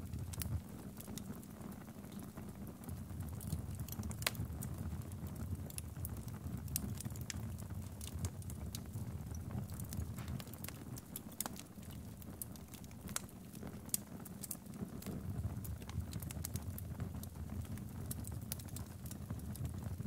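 Wood logs burning in a fireplace: irregular sharp crackles and pops over a steady low rumble of the fire.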